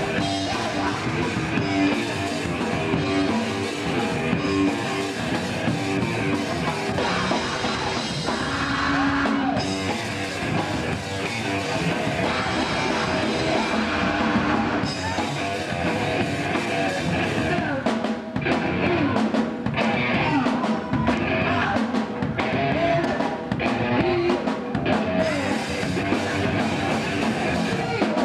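Loud rock music with drums, guitar and singing.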